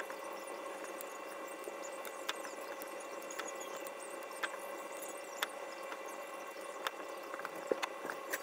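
Steady electrical hum with a few faint, sharp clicks scattered through it.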